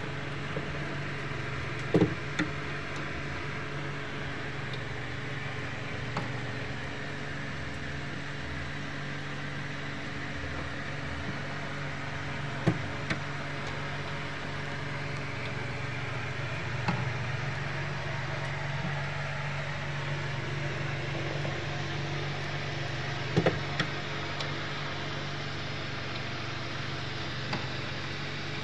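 Homemade egg incubator running with a steady hum and hiss, broken by a few short knocks.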